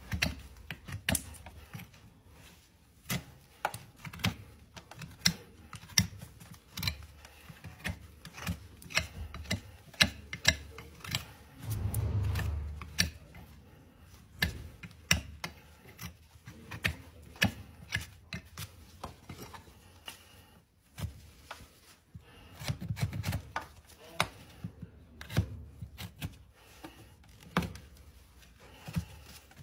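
Hoof knife paring the sole and frog of a large horse hoof: short, sharp cutting strokes at an irregular pace of roughly one a second. A low rumble is heard twice, once near the middle and once later on.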